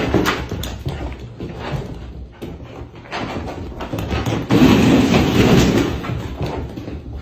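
A golden retriever romping around a room: a string of knocks and thumps, with a louder rumbling stretch about halfway through.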